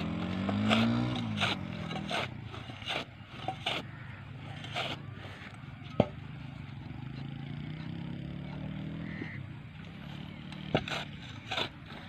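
A flat steel blade scraping and chopping into turf and soil in short strokes, with a sharp knock about six seconds in. A steady engine hum runs underneath, rising and falling in pitch near the start.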